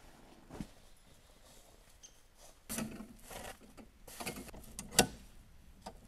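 Camping gear being handled: short rustles and knocks, a longer rustle about three seconds in, and one sharp click about five seconds in.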